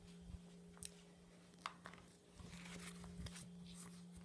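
Near silence: a low steady hum, with a few soft footsteps and handling rustles from the iPad Mini being carried while walking.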